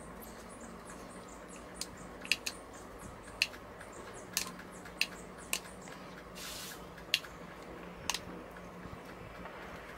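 Handling noise from a cordless angle grinder being turned over in the hands: about nine sharp clicks and taps of its plastic and metal housing, with a brief rustle about six and a half seconds in.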